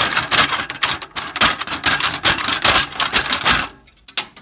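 Coping saw sawing through the lip of a plastic RV vent cover in fast back-and-forth strokes, about four a second, stopping about three and a half seconds in as the last cut is finished.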